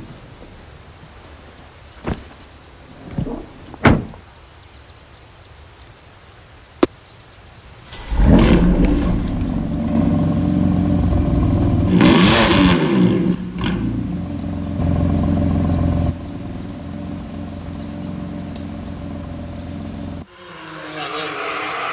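Car door and cabin clicks and thunks, then a BMW M3 drift car's engine starting about eight seconds in, blipped once, and settling to a steady idle. Just past twenty seconds the engine sound changes abruptly to a louder, harsher run.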